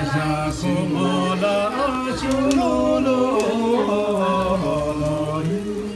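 A man singing a slow song with long, drawn-out held notes, easing off near the end.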